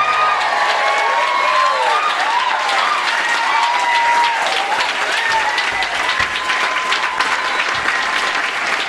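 Theatre audience applauding loudly and steadily at the end of a song, with voices calling out over the clapping.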